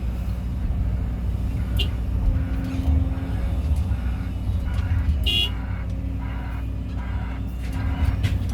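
Kobelco excavator's diesel engine running steadily with a deep rumble. Two brief sharp sounds cut through it, about two and five seconds in, the second with a short high ring.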